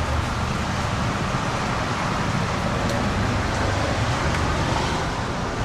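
Steady road and engine noise inside a moving car, an even rush with a low hum.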